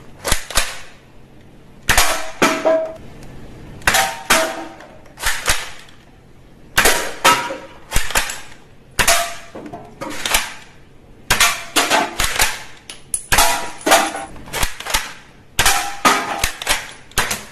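Toy gel-ball blaster rifle firing repeatedly, in short groups of sharp pops about every second or two. Clattering, ringing hits come as the cans on top of a stack of toy blocks are shot down.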